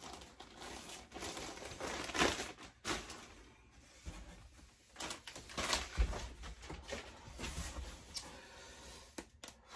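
Clear plastic bag rustling and crinkling in intermittent bursts as it is handled, with a few soft knocks.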